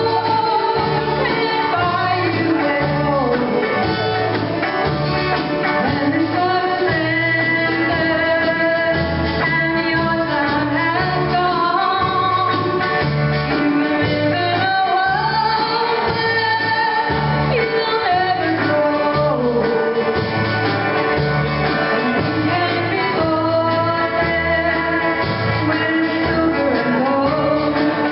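Live band with a woman singing lead over acoustic and electric guitars, banjo, drum kit and accordion, with a steady beat.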